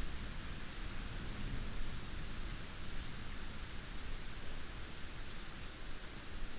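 Heavy rain falling steadily: an even hiss with a low rumble underneath.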